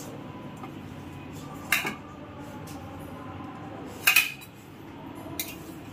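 Stainless steel kitchenware clinking: a steel plate knocking against a steel bowl as spice powder is tipped from the plate. There are sharp metallic clinks about two seconds in, a louder double clink about four seconds in, and a small one near the end.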